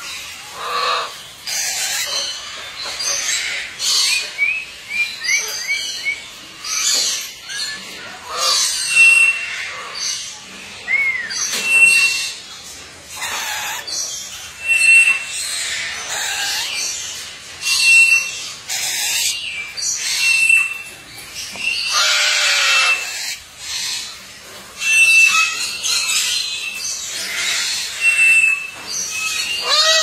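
Moluccan (salmon-crested) cockatoo screeching, harsh loud calls again and again a second or two apart. A short high whistle recurs about every three seconds alongside.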